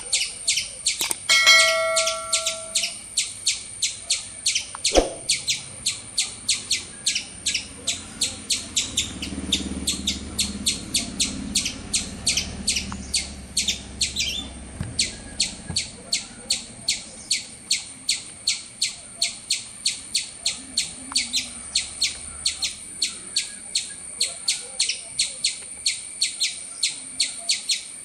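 High-pitched chirps repeating evenly at about three a second, with a short chime about two seconds in.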